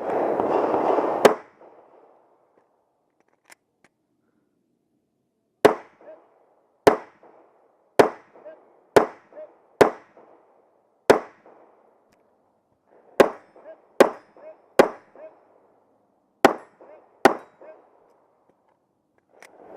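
About a dozen pistol shots fired at a steady pace, roughly one a second, in short strings with brief pauses between them. Each shot is followed by a short echo.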